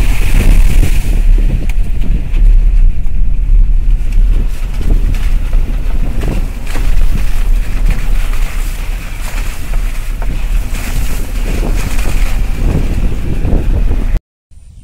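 Wind buffeting the microphone over the rumble of a moving vehicle, loud and steady; the sound cuts off abruptly near the end.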